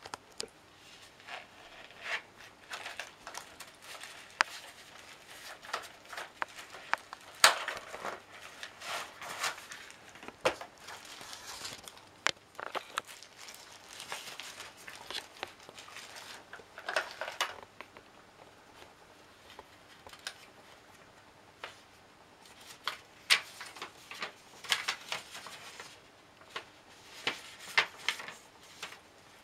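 Packaging being handled: a clear plastic bag crinkling, then a folded paper instruction leaflet rustling as it is unfolded. Irregular rustles and crinkles, with sharp taps and clicks scattered throughout.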